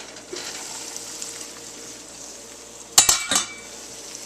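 Scrunchions and onion frying in a pan, a steady sizzle. A few sharp clinks of a utensil against the pan come about three seconds in.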